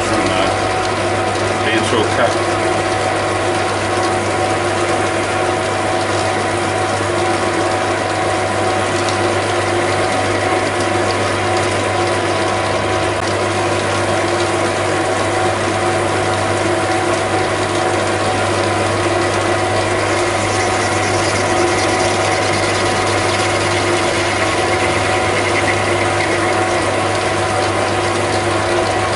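Metalworking lathe running steadily at about 560 rpm, its gear train giving a constant whine of several tones over a mechanical rattle.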